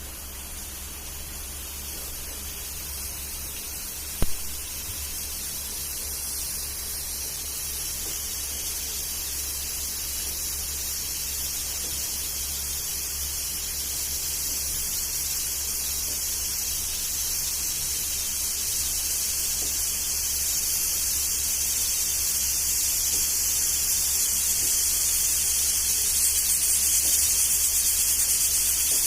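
Pressure cooker hissing steam from its vent, a steady high hiss that grows gradually louder as pressure builds, with a sharp click about four seconds in.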